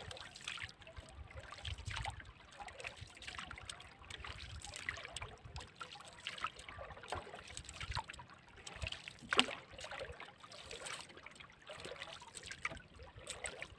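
Sea water lapping and trickling against the hull of a small fishing boat, with scattered light clicks and knocks, one sharper knock about nine and a half seconds in.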